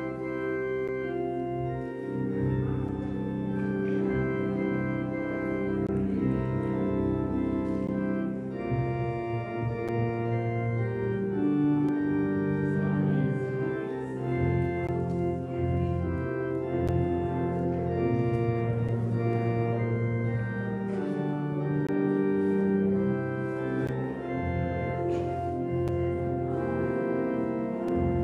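Organ music: slow, sustained chords that change every second or two.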